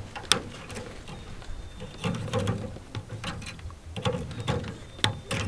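Pliers working on frost-covered woven-wire fencing, giving a string of sharp metallic clicks and snaps over glove-and-wire handling noise. The loudest snaps come about a third of a second in and again near the end.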